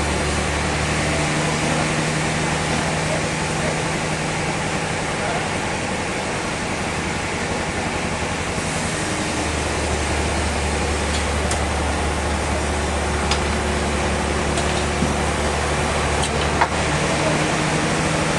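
Sawmill machinery running steadily with a loud, even noise and a low hum that cuts out about a second in and returns about halfway through, with a few sharp knocks near the end.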